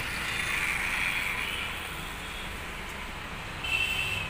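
Road traffic going by: a steady rush of passing vehicle noise, with a faint high tone near the end.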